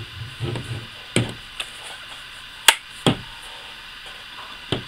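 Handling noises from the plastic body of a Daisy Powerline 880 air rifle being fitted together: a soft rubbing at first, then about four sharp plastic clicks and knocks, the loudest a little past the middle.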